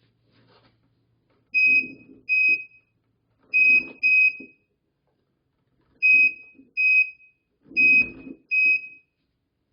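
Hoverboard's built-in buzzer sounding its warning alarm: short high beeps in pairs, a pair roughly every two seconds, four pairs in all.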